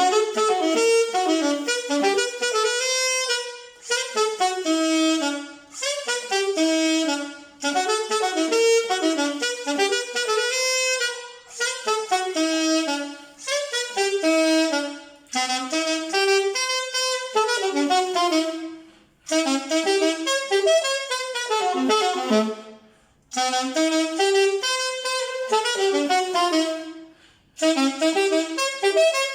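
Saxophone played through a handmade guayacán-wood mouthpiece built with a baffle, as a test of the mouthpiece. It plays a melodic line in phrases of about two seconds, each separated by a short pause for breath.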